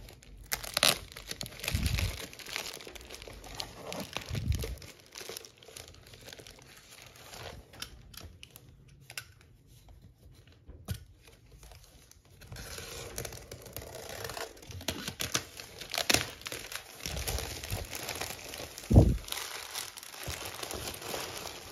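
Plastic courier pouch crinkling and tearing as it is slit open with a small cutter and peeled off a cardboard box. The rustling goes quieter for a few seconds in the middle, then gets busier, with a few dull thumps as the box is handled. The loudest thump comes near the end.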